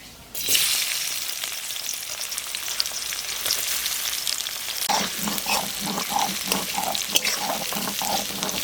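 Chopped onion sizzling in hot oil in a pan: the hiss starts about half a second in as the onion goes in and holds steady. From about five seconds in, the onion is stirred with regular scraping strokes, about two a second.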